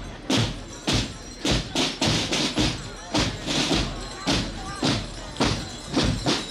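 Shod hooves of heavy draught horses in parade harness clopping on asphalt, sharp irregular clops about two a second.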